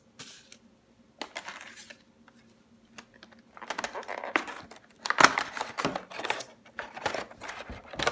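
Short rustles of paper booklets being handled. Then a clear plastic packaging tray crackles and clatters as a clamp is worked out of it, louder and denser in the second half.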